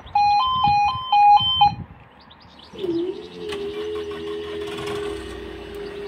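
Level-crossing warning signal, a two-tone electronic tone stepping between a high and a low note about three times, then stopping. About three seconds in, the powered barrier's drive unit starts with a steady whine as the barrier arm is raised.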